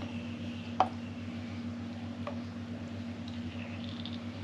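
Glass jars and kitchen utensils clinking while pickle jars are topped up with brine: one sharp clink a little under a second in and a fainter one about two seconds later, over a steady low background hum.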